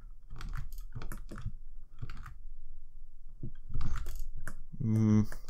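Computer keyboard keys tapped over and over, a string of short clicks as the same shortcut is pressed repeatedly. A brief hummed voice sound comes near the end.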